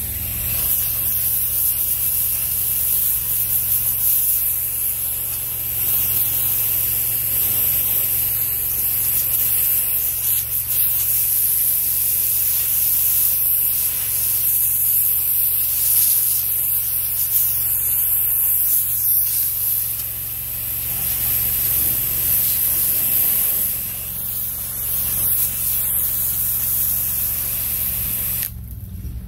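Pressure-washer jet spraying against a stucco wall, a loud steady hiss of water over a steady low hum, rinsing off house wash mix and the fungus gnats it has loosened. The spray cuts off near the end.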